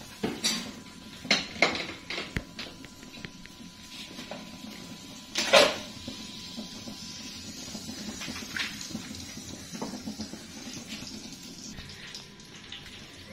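Metal pans and utensils clinking and knocking on the stove, several sharp clicks with one louder clank about five and a half seconds in, then a faint steady hiss of butter and oil heating in the frying pans.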